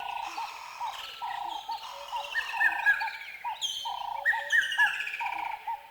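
Several birds singing and calling at once, with short notes repeated over and over, falling trilled phrases, and a few high chirps.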